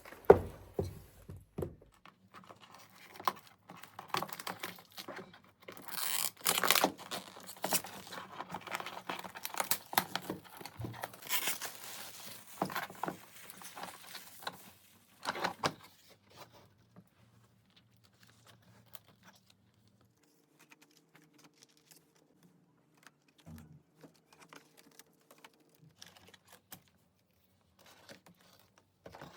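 Rustling, crinkling and light clicks of things being handled, busy through the first half and then sparse.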